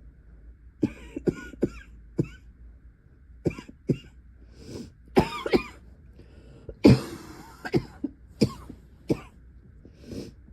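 A young woman's coughing fit: about a dozen sharp coughs in clusters, the longest and loudest about seven seconds in. It is a persistent cough attack that keeps coming back through the night.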